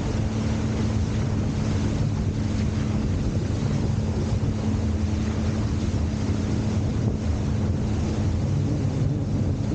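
Jet ski engine running at a steady speed while under way, with wind buffeting the microphone and water rushing past.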